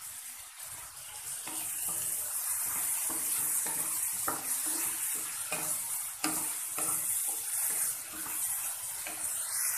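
Chopped tomatoes sizzling in hot oil and fried masala in a non-stick pan as they are stirred with a spatula: a steady hiss broken by repeated scraping strokes of the spatula against the pan. The tomatoes have just gone in after the spice paste began to release its oil.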